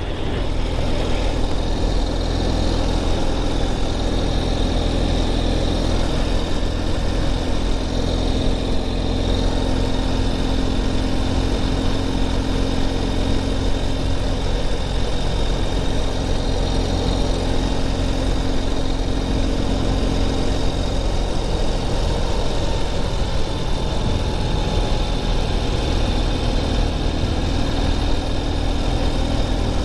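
Motorcycle engine running steadily while cruising, with constant wind and road noise.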